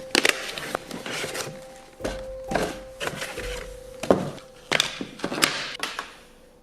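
Hands handling PC parts and their packaging: a run of clicks and knocks with short scraping and rubbing between them.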